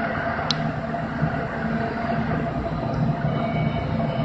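Steady mechanical din of an ABA double-screw HDPE film blowing machine running, a continuous low hum with a few steady higher tones. A brief sharp tick sounds about half a second in.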